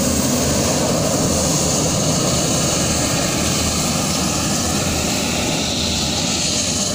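Airbus A350 jet engines at taxi power as the airliner rolls and turns close by: a steady loud rush with a high turbine whine over a low rumble.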